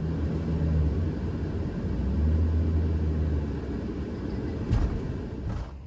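Mercedes Sprinter-based Thor Sanctuary camper van driving on beach sand: a steady low drone from engine and tyres. Two knocks come near the end, the first the loudest moment.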